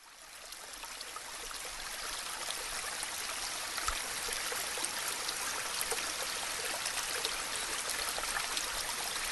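River water flowing steadily, a continuous rush of running water that fades in over the first couple of seconds.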